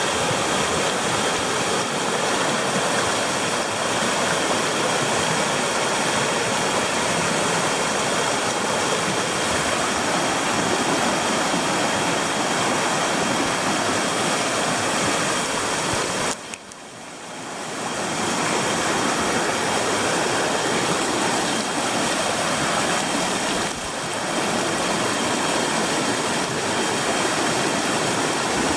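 Mountain stream rushing steadily over rocks, a loud even wash of water. About sixteen seconds in, the sound suddenly drops away and swells back over a second or two.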